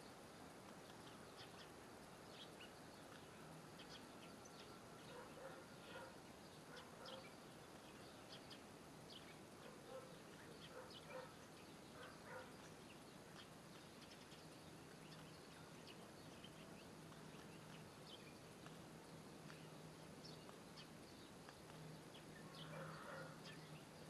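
Faint outdoor ambience: scattered short, high chirps of small birds in the distance, with a faint steady low hum underneath.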